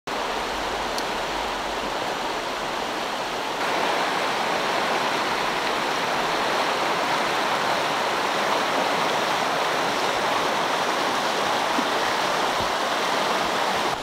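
Shallow mountain stream rushing over rocky riffles, a steady hiss of running water that gets a little louder just before four seconds in.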